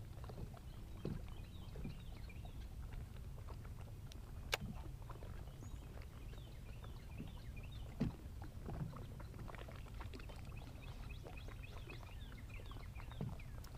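Quiet ambience in a small boat on open water: a low steady rumble of light wind and water lapping at the hull, with scattered faint clicks, one sharp click about four and a half seconds in and a soft knock about eight seconds in.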